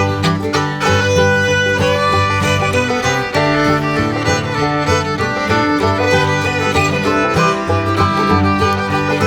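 Background music led by a fiddle over a moving bass line.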